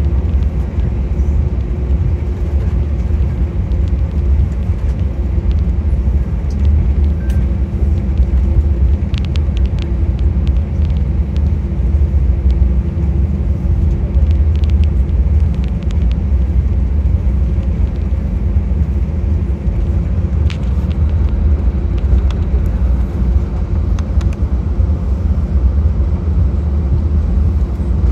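Cabin noise of an Airbus A319 taxiing: a steady low rumble from the engines at taxi power and the rolling airframe, with a faint steady hum above it. Occasional light clicks come through, most of them in the first half.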